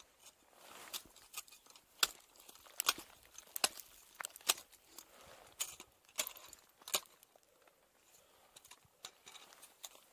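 Ice axe picks and crampon points striking waterfall ice in sharp, irregular chops, about a dozen mostly in the first seven seconds, fewer near the end.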